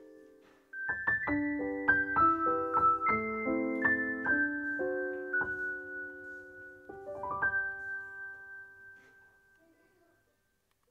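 Background piano music: a phrase of struck notes and chords begins just under a second in and dies away near the end.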